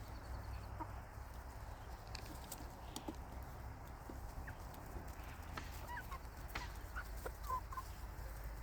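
Chickens in a coop giving short, soft calls, more of them in the second half, with scattered sharp clicks and taps over a low steady rumble.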